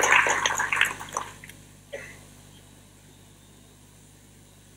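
Audience applause dying away about a second in, then a single knock near two seconds, then a faint steady room hum.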